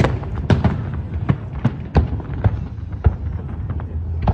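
Aerial fireworks shells bursting in quick succession, about two sharp reports a second over a continuous low rumble.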